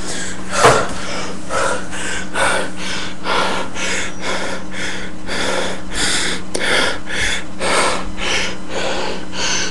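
A man panting hard, about two quick, noisy breaths a second, out of breath after heavy exertion. A steady low hum runs underneath.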